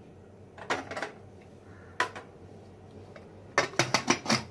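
Metal clatter of a steel pressure cooker and utensils being handled. There is a short scrape about a second in, a single sharp clink about two seconds in, then a quick run of about six clinks near the end.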